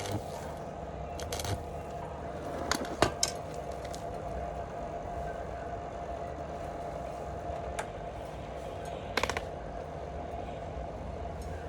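A homemade 110-volt DC welding plant runs with a steady hum and the whirr of its cooling fans, broken by a few sharp crackles and clicks, the loudest about three seconds in and another about nine seconds in.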